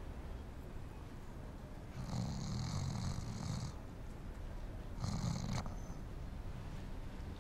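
A man snoring as he dozes, two snores: a long one about two seconds in and a shorter one about five seconds in.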